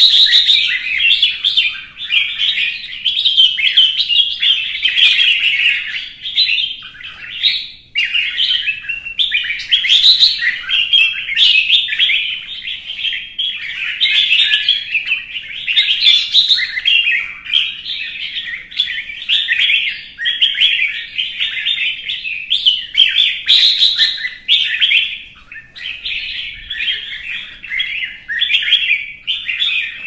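Red-whiskered bulbul song: rapid chirping phrases in an almost unbroken stream, the agitated competitive "fighting" song that bird keepers use to fire up a bulbul.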